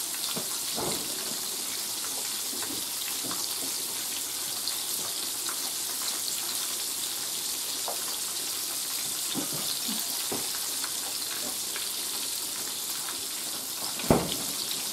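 Food sizzling in a skillet on a gas stove, a steady hiss with a few faint ticks. A sharp knock comes near the end.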